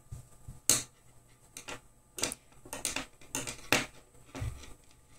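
Hands handling chenille yarn and a crochet hook: a string of irregular short rustles and small clicks, the sharpest under a second in.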